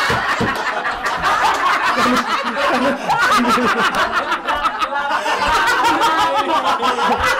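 Three men laughing loudly together, their laughter overlapping without a break.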